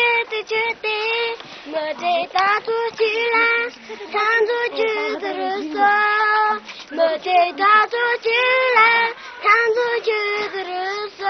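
A young boy singing solo and unaccompanied, in held notes that glide from one to the next, with short breaks between phrases.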